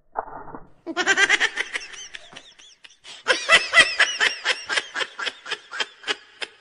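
Laughter sound effect edited into the soundtrack: a run of short, high-pitched laughing bursts coming several times a second, thickest in the middle.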